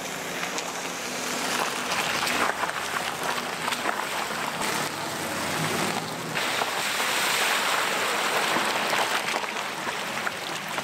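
Car tyres rolling slowly over a wet gravel road and through puddles: a steady rush of water splashing with the crackle of gravel under the tread.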